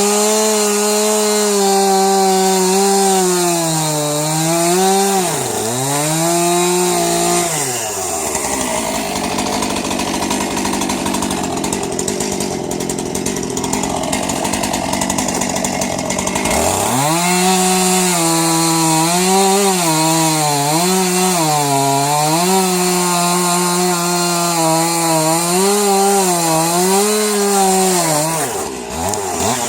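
Two-stroke chainsaw running at high revs, its pitch dipping again and again as the chain bites into birch wood. For about nine seconds in the middle the engine note sinks under load into a rough sawing noise. It then revs back up and carries on cutting with more dips.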